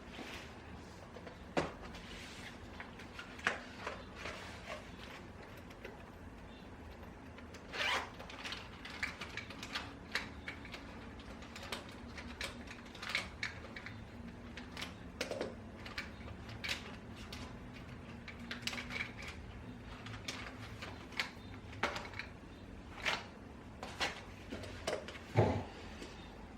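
Irregular short scratches, taps and rustles of someone working at a desk, over a faint steady room hum, with a louder knock near the end.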